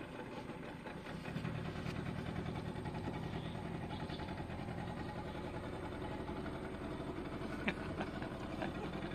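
An engine running steadily, louder from about a second in, with a single sharp knock near the end.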